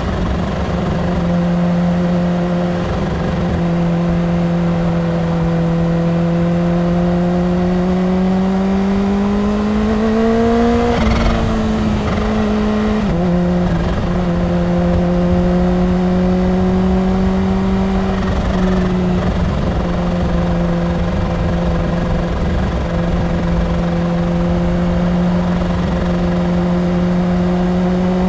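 Kawasaki Ninja H2's supercharged inline-four engine under way at highway speed, with wind and road rumble. The engine note climbs steadily to about ten seconds in, drops in a step a few seconds later as the rider shifts up, then holds steady and begins rising again near the end. There is a brief rush of noise about eleven seconds in.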